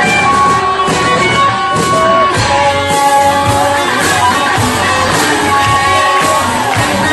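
Live rock band playing an instrumental passage: an electric guitar lead with held and bent notes over bass and drums.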